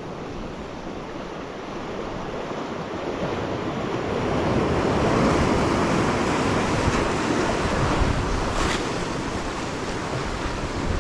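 Sea surf breaking and washing over shoreline rocks, swelling to its loudest about halfway through and then easing off.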